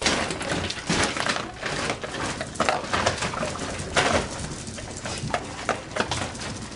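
Dry dog kibble rattling and clattering in a plastic storage bin, with dogs snuffling and crunching at it as it is filled; irregular sharp clicks and crackles throughout.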